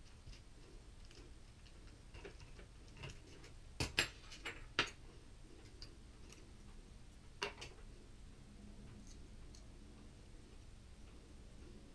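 Scattered light clicks and taps of small parts and tools being handled during assembly, with a quick cluster of sharper clicks about four seconds in and another single click at about seven and a half seconds.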